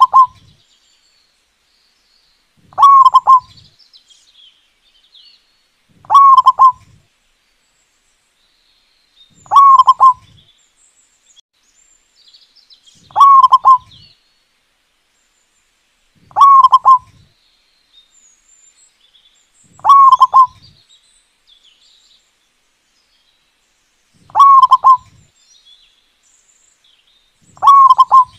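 Zebra dove (perkutut) singing: a short phrase of rapid coos, repeated about every three to four seconds, nine times over, with faint high chirps in the gaps.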